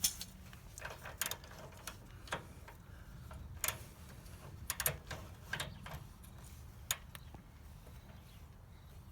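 Light, irregular metallic clicks and knocks, about a dozen scattered over several seconds, from metal tools and suspension hardware being handled while working on the camber bolts; they die away near the end.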